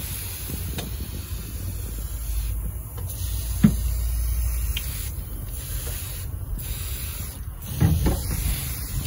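Aerosol can of tire foam spraying in long hissing bursts broken by short pauses, with a sharp tap a little before halfway.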